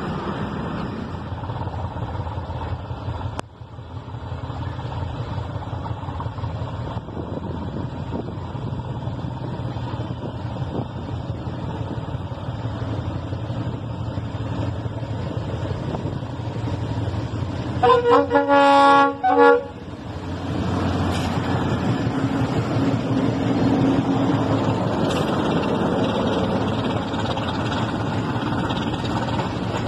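Freight train wheels rumbling steadily along the track, then a DF7G-C diesel locomotive sounds its horn about two-thirds of the way through, a long blast and a short one. The locomotive's diesel engine then passes close by.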